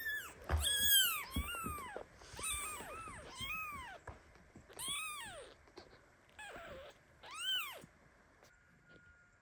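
Newborn kitten meowing in about eight high, thin calls that rise and fall in pitch, each under a second long, loudest near the start and growing fainter toward the end. The kitten is crying in protest at its mother cat lying on top of it.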